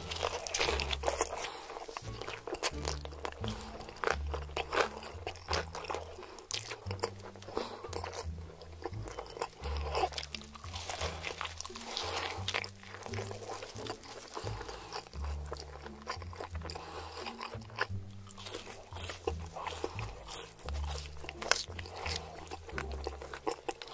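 Close-miked crunching and chewing as crispy fried chicken and a fried chicken sandwich are bitten and eaten, with many sharp crackles of breading. Background music with a repeating low bass line plays underneath.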